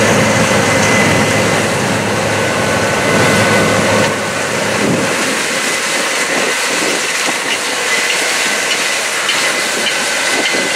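Combine harvester running while harvesting corn: a steady machinery noise with a thin high whine over it, the low rumble falling away about halfway through.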